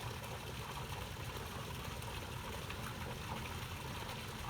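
Water pouring steadily from a spout into a fish pond.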